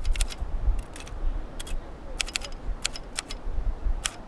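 Late-1970s Italian-made Underwood portable mechanical typewriter being typed on: an irregular run of sharp key strikes, about fifteen, with short pauses between groups.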